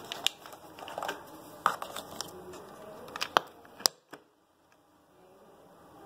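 Hands handling the plastic parts of an Instant Solo coffee maker: a run of sharp clicks and light knocks, the loudest two near three and four seconds in, followed by a brief hush.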